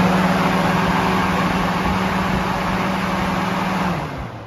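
Two electric radiator cooling fans running at high speed on the relay harness's high-speed circuit: a loud, steady rush of air over a motor hum. About four seconds in, power is cut and they wind down.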